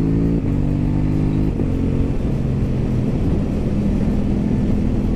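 KTM Duke motorcycle engine pulling under acceleration, its note climbing and then dropping at two quick upshifts about half a second and a second and a half in, then running steadily under way with wind rush.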